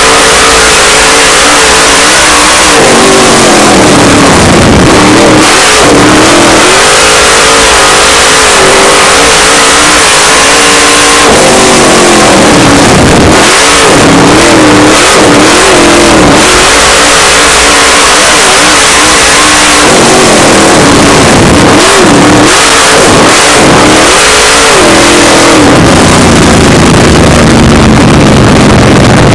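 Dirt late model race car's V8 engine at racing speed, heard from inside the cockpit: loud and continuous, the pitch dropping as the driver lifts for the turns and climbing again as he gets back on the throttle, in a cycle every eight or nine seconds.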